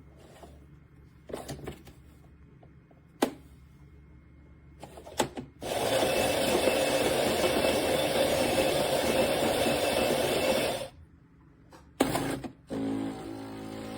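Philips Baristina espresso machine at work: a few clicks, then a loud steady mechanical run lasting about five seconds that stops suddenly. After a short pause and another click, a lower, steadier hum starts near the end.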